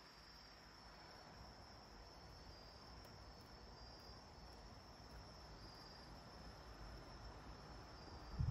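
Near quiet: faint, steady high-pitched insect trilling that swells slightly now and then, over a faint low hum.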